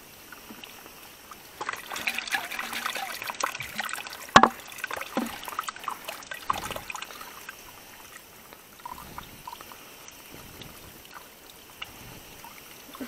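Spring water trickling off a rock into a plastic water bottle held under it, filling the bottle. Irregular splashes are busiest in the first half, with one sharp knock about four seconds in.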